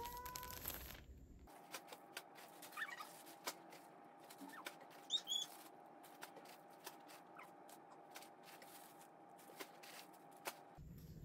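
Faint rustling and crinkling of plastic garment bags and cardboard box flaps being handled while clothes are unpacked, with scattered soft clicks over a faint steady tone.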